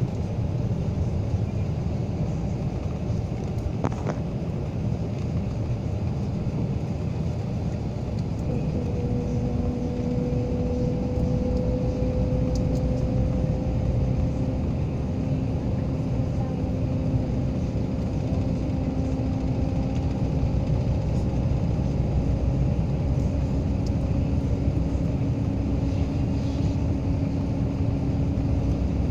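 Steady road and engine noise heard from inside a moving vehicle, with a steady low hum that joins about nine seconds in.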